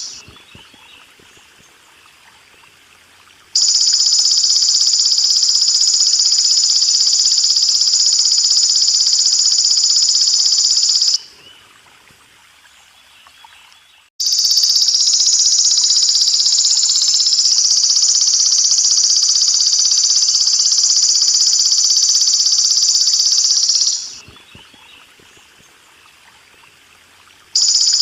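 Belalang emas (golden grasshopper) calling in two long, steady, high-pitched buzzing trills of several seconds each, each starting and stopping abruptly. Faint trickling water is heard in the pauses between them.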